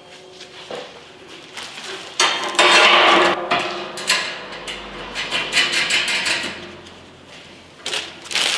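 Steel spacer arms clinking and clattering against each other and the stainless steel barrel as they are fitted together by hand, in irregular bursts, loudest about two to three seconds in.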